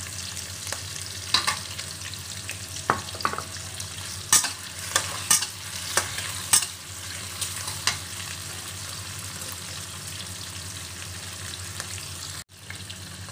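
Shrimp and garlic sizzling in hot oil in a stainless steel wok. A metal spatula clinks and scrapes against the pan several times during the first eight seconds or so as it stirs. The sound cuts out briefly near the end.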